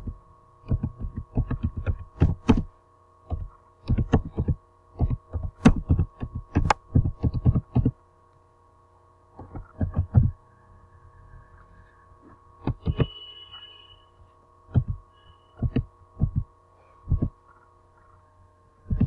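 Typing on a computer keyboard: irregular runs of keystrokes, each a dull knock, broken by short pauses. A steady electrical hum runs underneath.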